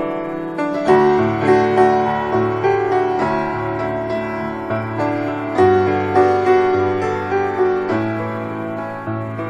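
Piano music: slow chords under a gentle melody, with notes struck and left to ring, swelling with louder struck chords about a second in and again near six seconds.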